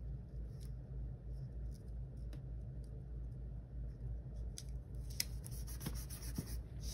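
Paper sticker being laid onto a planner page and pressed and smoothed down with the fingertips: faint scattered paper rubs and light clicks, a few more near the end, over a steady low hum.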